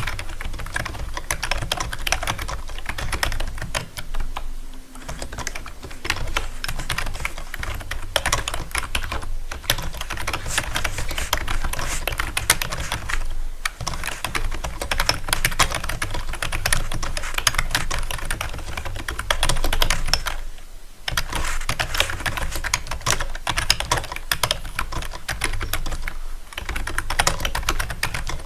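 Rapid typing on a keyboard: a dense, continuous stream of key clicks, broken by a few brief pauses.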